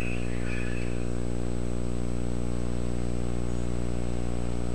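A steady low electrical hum with a buzzy edge, unchanging in pitch and level.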